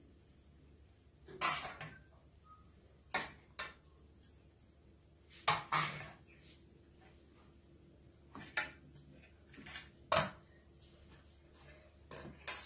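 Serving spoon scraping a pot and knocking against a steel tray as cooked rice is scooped out and spread. About seven short scrapes and knocks come a second or two apart.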